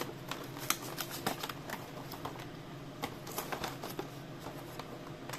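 Cardboard box of a Matchbox 5-pack being picked at with fingernails and torn open at the top flap: a run of small scratchy clicks and short tearing sounds.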